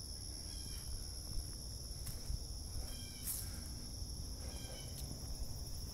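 A steady chorus of insects, heard as two continuous high-pitched buzzing tones, over a low rumble of handling noise and a few faint ticks.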